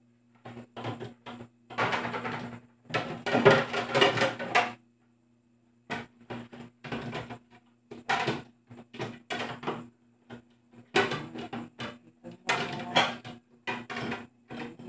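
Plates and dishes clinking and clattering as they are handled and set into a plastic dish drainer, in irregular short knocks, with two longer stretches of dense clatter in the first five seconds.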